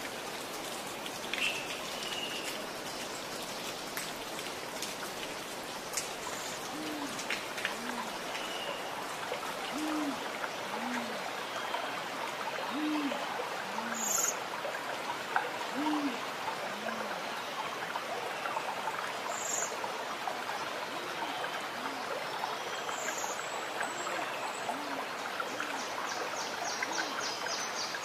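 A bird's low hooting calls, in pairs of a higher then a lower note repeated every few seconds, over a steady rain-like hiss.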